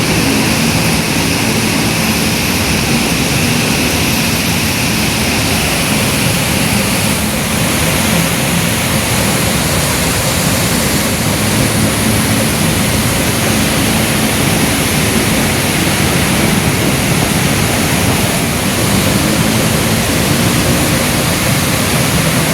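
Heavy rain falling steadily, a loud even hiss, with the low hum of vehicle engines at a road intersection underneath.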